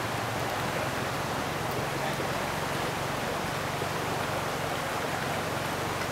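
Steady rushing of a stream: an even, unbroken hiss with nothing standing out from it.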